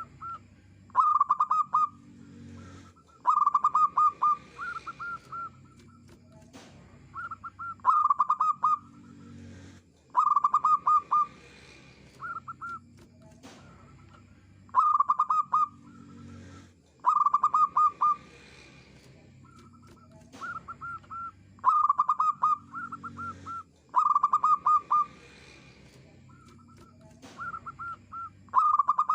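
Zebra dove singing: phrases of rapid staccato coos, one every two to three seconds.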